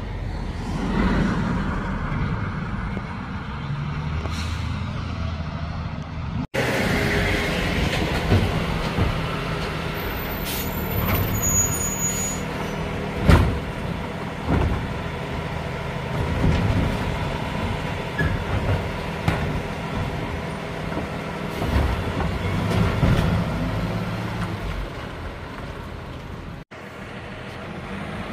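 Freightliner M2 garbage truck's diesel engine running, with the Labrie Helping Hand side-loader arm working carts and hisses from the air brakes. Several sharp knocks come through; the loudest, about halfway through, is a cart banging against the truck as it is emptied.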